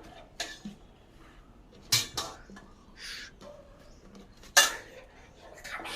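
A few sharp clatters of metal kitchen utensils against cookware, the loudest about four and a half seconds in, with a brief rustle near the middle.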